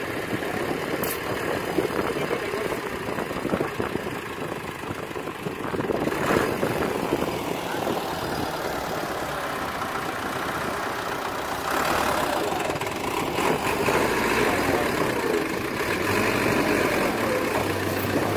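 Farm tractor's engine running under load as it tows a stuck vehicle out of deep water, getting louder about six seconds in and again about twelve seconds in.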